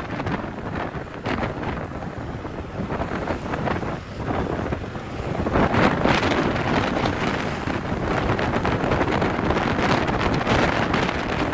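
Heavy wind buffeting the microphone while travelling along a road, a rough steady rush that dips about four seconds in and grows louder a couple of seconds later.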